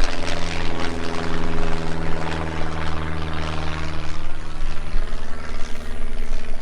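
An engine running steadily at constant speed, a low hum with several even overtones that thin out slightly in the second half.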